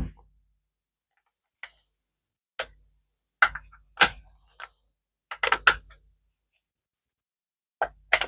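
Hard plastic clicks and knocks of a Bosch 18V power-tool battery's casing being fitted back together over its cell pack by hand: a sharp click at the start, then short clusters of clicks with pauses between.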